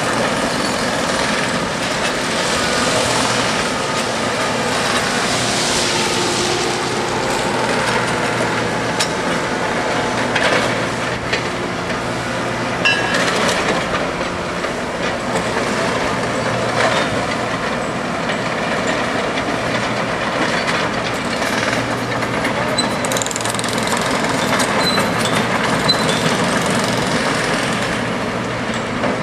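Diesel engines of heavy track-work machines, a crawler loader and an excavator, running steadily while handling ballast, with a low engine hum under scattered metallic clanks.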